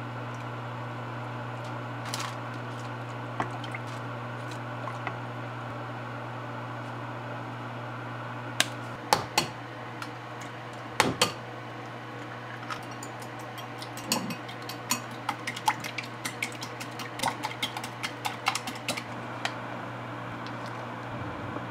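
Eggs cracked against the rim of a glass bowl, a few sharp knocks, then beaten in the bowl: a quick run of light clicks of the utensil against the glass lasting about five seconds. A steady low hum runs underneath.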